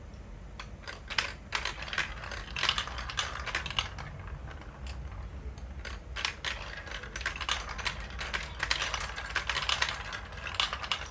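Marbles rolling and clattering down plastic building-block marble run tracks, a rapid, irregular run of clicks and knocks.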